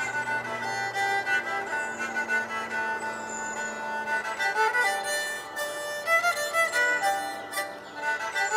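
Instrumental background music: a slow melody of held notes, with shorter, quicker notes in the second half.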